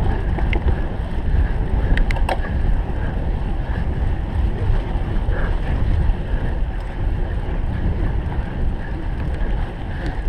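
Wind buffeting the microphone and the low rumble of a cyclocross bike ridden at race pace over rough ground, with a few sharp clicks about two seconds in.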